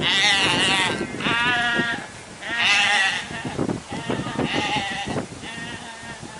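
Sheep bleating: about five separate quavering calls, one after another, each lasting up to a second.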